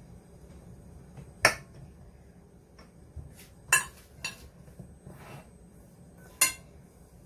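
Kitchenware being handled on a counter: four sharp clinks and knocks of a ceramic mixing bowl and a metal baking pan, the first, about a second and a half in, the loudest, with faint brushing of hands in shredded kataifi pastry between them.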